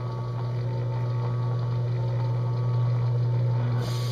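Electric drill press motor running steadily with a low hum. A faint hiss comes in near the end.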